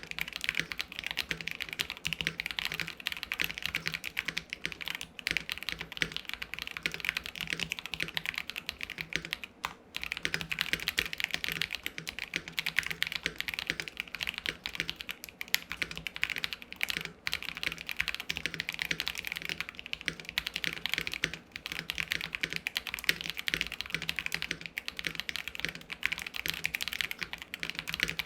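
Fast continuous typing on a mechanical keyboard with stock KTT Peach linear switches: a KBD67 Lite R2 with a polycarbonate plate, giving a deep, thocky clatter of keystrokes with brief pauses now and then.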